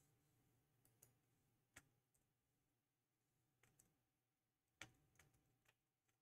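Near silence with several faint, sharp clicks scattered through, the loudest about five seconds in.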